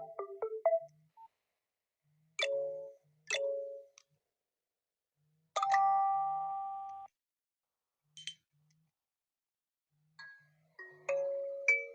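Nokia mobile phone message tones played one after another: short electronic chimes with silences between them, one longer chord fading out near the middle, and a quick run of notes starting near the end.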